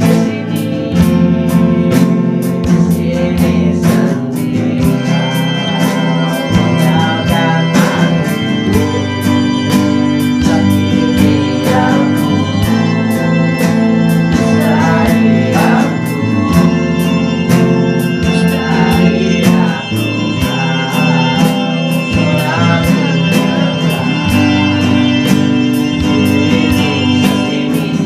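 Acoustic guitar strummed in steady chords, with a man singing a song in Indonesian over it.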